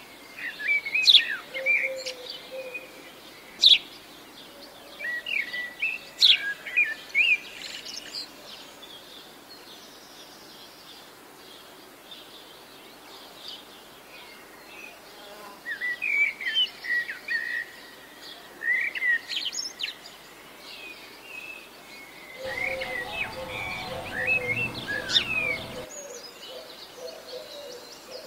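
Small birds chirping and singing in short high phrases, in bursts with a quieter lull in the middle. An insect buzzes for about three seconds near the end.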